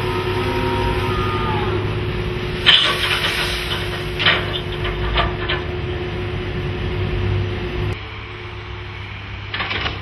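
Diesel engine and winches of a Sennebogen 650 HD dragline crane running steadily under load, with a humming drone. From about three seconds in, a run of sharp clicks and rattles as the gravel-filled bucket is emptied. A short splash near the end.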